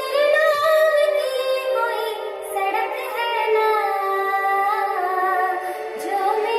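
Woman singing a Hindi film song into a handheld karaoke microphone, holding long notes that glide up and down.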